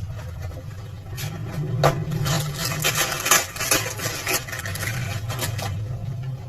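A quick series of sharp clicks and clinks, as of hard parts or tools knocking together, over a steady low hum.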